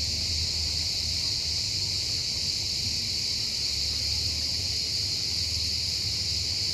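Cicadas singing in chorus: a steady, shrill, unbroken buzz, over a low rumble.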